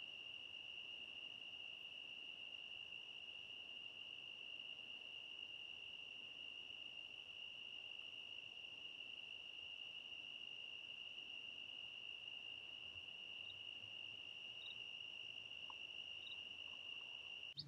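Crickets trilling in one faint, steady, unbroken high-pitched drone.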